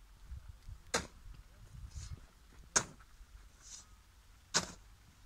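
Slow footsteps on dry, stony soil: three sharp clicks roughly two seconds apart, with softer steps between them, over a low rumble.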